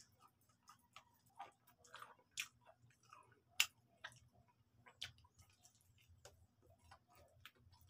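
Chewing and biting fried chicken: an irregular run of quiet, sharp mouth clicks and smacks, the loudest about three and a half seconds in.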